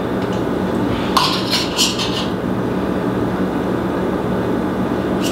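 A few quick metallic clinks over about a second, the first one ringing, as a marinade injector is knocked against a small stainless saucepan while it is refilled, over a steady low hum.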